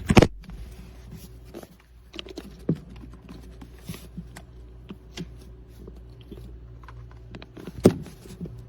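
Light clicks and knocks of handling as a power cord's plug is fitted into the back of a small travel electric kettle, with a couple of sharper knocks at the start and one near the end.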